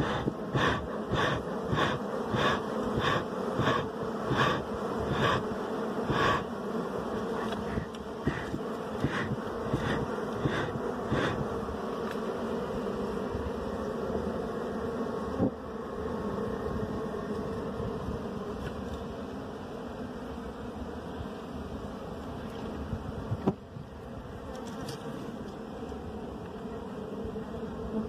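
Swarm of wild bees buzzing steadily around their opened nest. Through the first eleven seconds or so, rhythmic scraping strokes about twice a second come from a curved blade working at the comb, and a couple of single knocks follow later.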